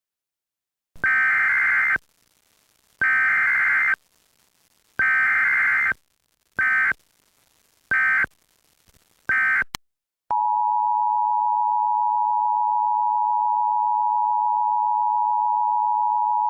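Emergency Alert System tones. First come three one-second SAME header data bursts, a second apart, then three shorter bursts. About ten seconds in, the steady two-tone EAS attention signal (853 and 960 Hz) starts and holds.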